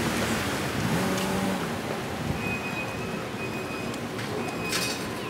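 Outdoor street noise: a steady hiss of traffic and wind on the microphone, with faint voices early on, a thin steady whistle-like tone partway through, and a couple of light clicks near the end.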